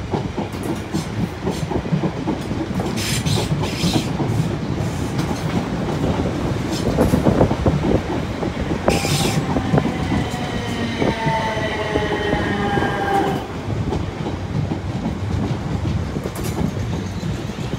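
South Western Railway electric multiple units, a Class 450 departing and a Class 455 arriving, running through the station with a continuous rumble and wheels clicking over rail joints. About nine seconds in, a whine of several tones falls in pitch for a few seconds and then fades.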